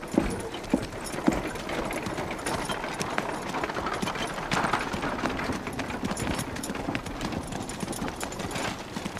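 Horses' hooves clip-clopping on a dirt street, many irregular short knocks over a steady background hubbub, with a few sharper knocks in the first second or so.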